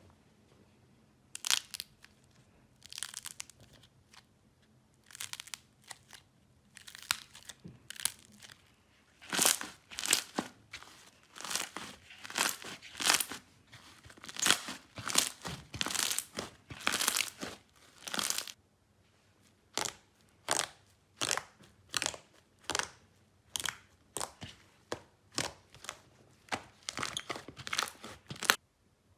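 Slime being pressed and squeezed by hand, giving short crackling, crunching bursts about once a second.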